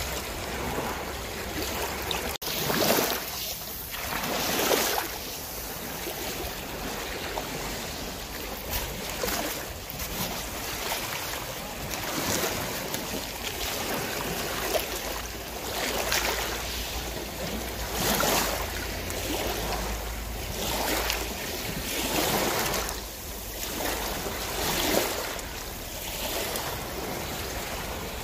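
Sea water rushing and splashing along the side of a slowly cruising boat, surging louder every few seconds, with wind on the microphone.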